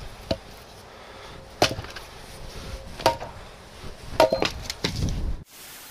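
Split firewood pieces knocking against each other as they are picked up into an armload: sharp wooden clacks about a second apart, then a quick clatter of several pieces near the end.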